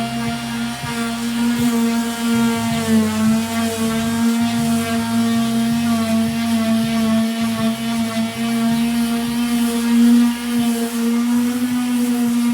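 Power sander running steadily with a high, even motor whine on the truck bed's sheet metal, its pitch dipping slightly about three seconds in.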